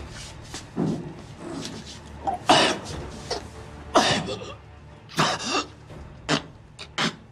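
A man's short, sharp coughing gasps and grunts, about six to eight irregular bursts, as if in pain or struggling for breath.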